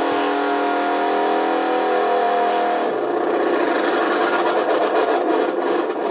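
Electronic 'whammy' sound effect from a CB radio's echo board, heard through the radio's speaker. A steady, buzzy synthesized tone with a slight pulse changes about three seconds in to a fast, jittery warble.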